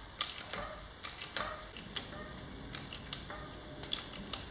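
Manual hydraulic pipe bender being pumped by hand, its pump handle and linkage giving irregular sharp metallic clicks, a few a second, as the ram bends a steel tube.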